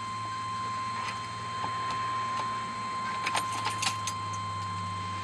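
Car keys jangling, with a quick run of sharp clicks about three to four seconds in, over a steady high tone and a low hum.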